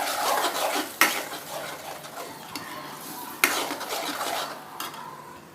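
Ground onion-ginger-garlic paste sizzling in hot oil in a kadai while a spatula stirs and scrapes it, at the stage of sautéing off its raw smell. Sharp clanks of the spatula against the pan about a second in and again a little past three seconds.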